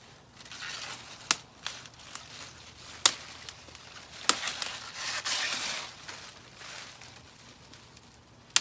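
Curly kale leaves being snapped off the stalk by hand: several sharp snaps of the stems breaking, with the crisp leaves rustling between them.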